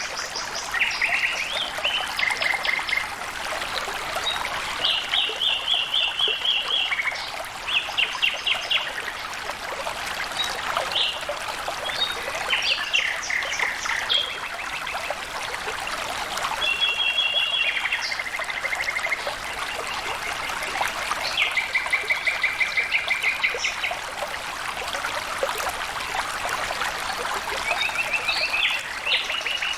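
Water flowing and trickling steadily, like a small stream, with birds singing short, rapid trills over it again and again.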